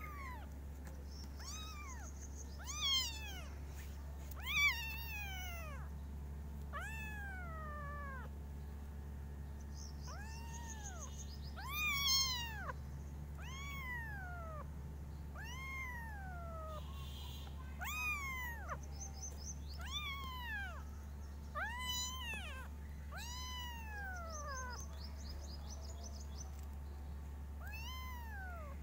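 Young kittens meowing over and over, about one high-pitched cry every second or two, each rising then falling in pitch; a few cries are louder than the rest.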